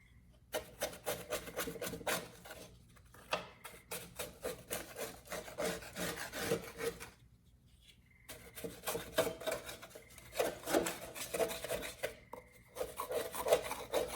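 Hand file scraping along the steel edge of a rotary lawn mower blade in quick repeated strokes, sharpening it, with short pauses about seven and twelve seconds in.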